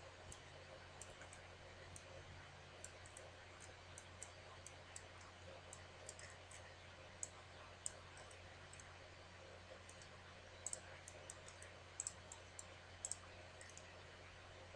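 Computer mouse buttons clicking, about two dozen sharp clicks scattered throughout, several in quick pairs like double-clicks, over a faint steady low hum.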